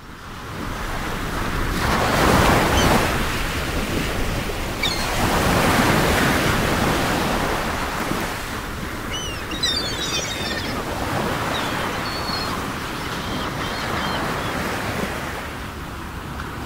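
Sea waves and wind: a steady rush of surf that swells and ebbs, loudest in two surges early and mid-way. A few faint high squeaks come near the middle.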